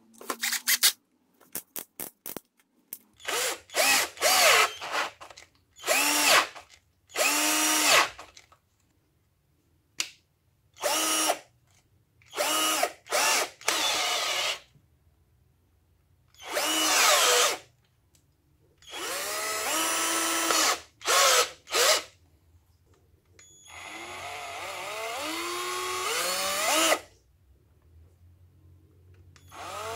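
Volvo-branded 18 V cordless drill's motor run in a series of short trigger pulls, each whine climbing as it spins up and falling as it stops, with a few quick blips at the start and one longer run of about three and a half seconds near the end. In its second mode the drill keeps turning when the chuck is loaded.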